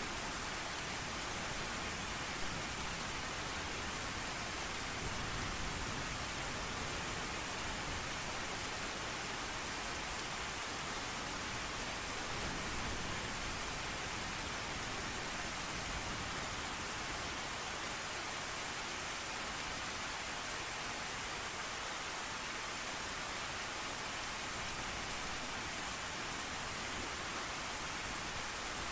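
Steady rain falling, an even unbroken hiss with no distinct drops or thunderclaps standing out.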